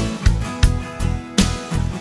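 Background music: plucked guitar over a steady beat, with a sharp percussive hit about every 0.7 seconds.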